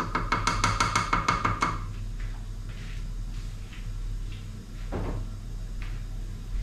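The Bosch Cookit's universal blade being worked out of and over its steel bowl: a quick run of metallic clicks with a ringing tone, about seven a second, for the first two seconds. After that there is a steady low hum, a few faint ticks and a soft knock about five seconds in.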